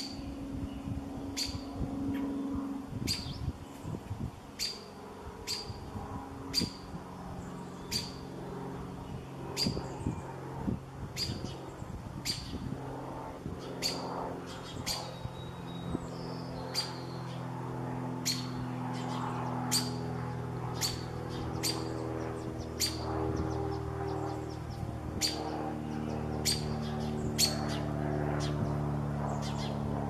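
A small bird giving a short, sharp chip call over and over, about one or two a second, over a low steady hum that grows louder about halfway through.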